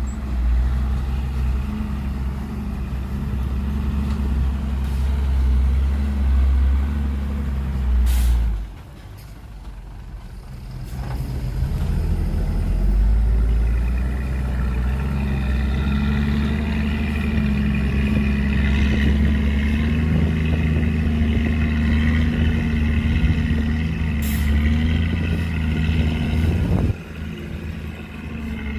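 Heavy diesel engines of earthmoving machinery at work: a dump truck and a bulldozer. The deep, steady engine sound falls away about eight and a half seconds in and builds back up a few seconds later, with a higher whine added through the second half. Two short sharp hisses, one just before the drop and one near the end.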